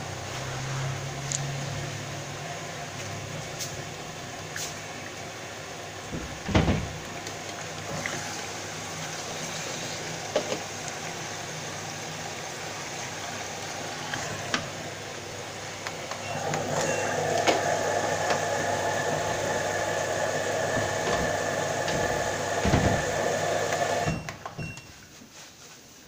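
Front-loading washing machine tumbling its drum through the wash, motor running and water sloshing, with a couple of dull thumps. The motor gets louder with a steady whine for several seconds in the second half, then cuts out near the end.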